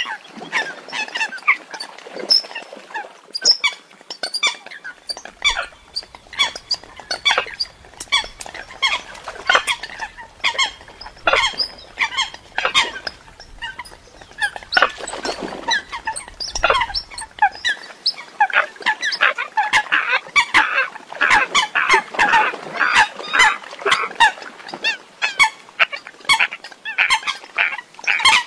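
Eurasian coots calling: a dense run of short, sharp call notes, several a second and often overlapping, busiest and loudest in the second half.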